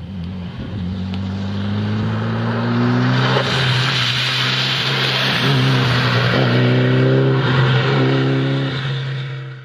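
Mitsubishi Lancer Evo IV rally car's turbocharged four-cylinder engine revving hard as the car approaches, passes close through standing water with its tyres hissing, and pulls away. The engine note climbs in pitch several times as it accelerates away, and the sound cuts off suddenly at the end.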